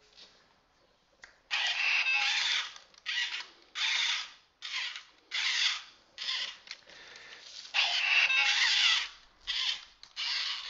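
Program a bot toy robot's small motors and gears whirring in about eight short bursts as its arms move.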